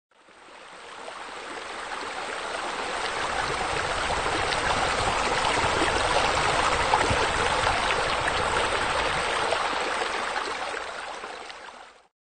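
Running water from a garden water feature: a steady splashing stream that fades in over the first couple of seconds, swells, then fades away and stops near the end.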